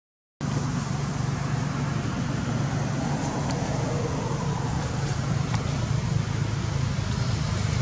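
A brief dropout to silence at the very start, then steady outdoor background noise: an even low rumble with a hiss over it.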